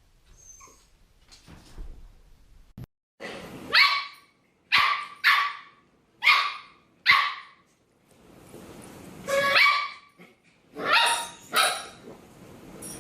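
A dog barking: a run of about nine single barks, roughly a second apart, starting a few seconds in.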